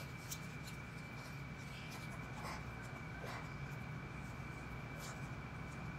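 Faint scrapes and light clicks of a fork on a plate and of hands handling food, over a steady room hum with a thin high whine.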